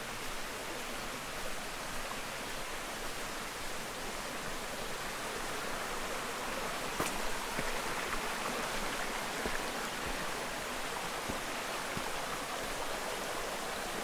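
Flowing stream: a steady, even rush of water that grows slightly louder around the middle, with a single sharp click about seven seconds in.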